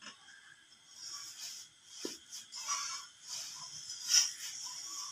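Radish-stuffed paratha sizzling and hissing on a hot iron tawa, swelling and fading unevenly, with a light knock about two seconds in.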